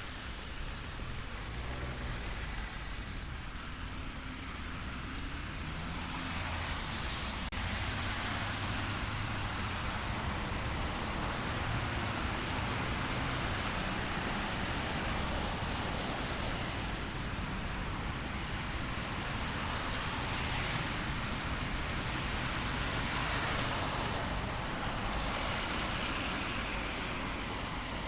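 Rain-soaked city street: car tyres hissing on the wet road over a low traffic rumble, swelling a few times as vehicles pass, with steady rain beneath.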